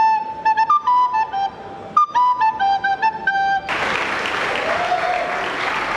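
A small end-blown flute plays a melody of short, clear notes into a microphone. About two-thirds of the way in, it cuts off suddenly and audience applause takes over.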